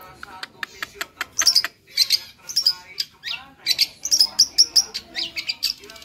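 Long-tailed shrike (cendet) singing a fast, varied song of sharp chirps and whistled notes, packed closely together with a few quick slurred notes.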